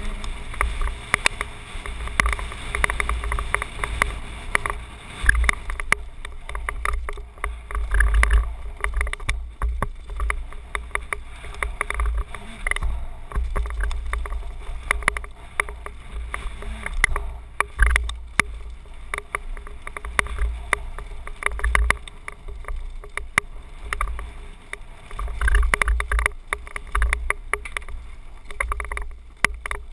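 Helmet-mounted action camera riding a mountain bike down a rocky trail: wind buffets the microphone in a deep, surging rumble, over a constant rattle of small clicks and knocks from the bike and tyres on loose stones.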